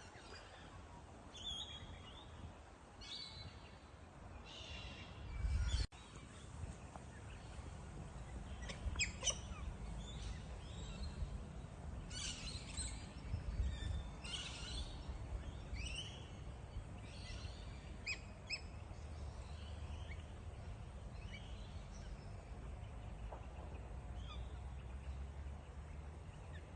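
Wild birds calling in short chirps and quick high notes that sweep downward, repeated irregularly, over a steady low rumble of outdoor background noise.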